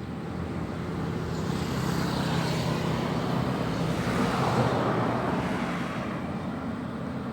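An engine drones steadily, with a rushing noise that builds to a peak about halfway through and then fades, like a motor passing by.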